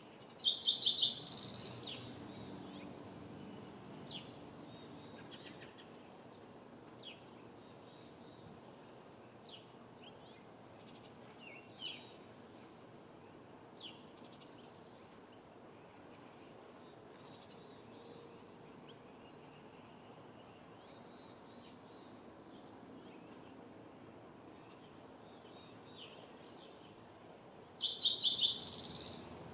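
A wren singing a loud, rapid, bubbly song twice, once about half a second in and again near the end, with scattered short faint chirps in between.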